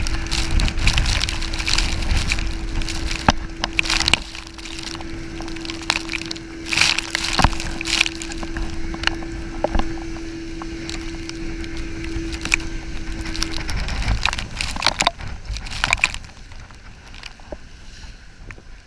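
Wind and rushing water buffet a chest-mounted action camera on a banana boat towed at speed, with frequent knocks and scrapes against the camera. A steady hum runs under it and stops about three-quarters of the way through.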